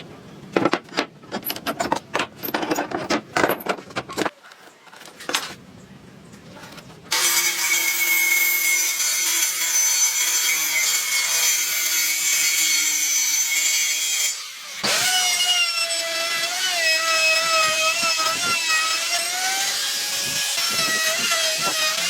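Woodworking: irregular rasping strokes on wood for the first few seconds. From about seven seconds an electric power tool runs and cuts, loud and steady. It drops out briefly about halfway through, then runs again with its pitch wavering as it works under load.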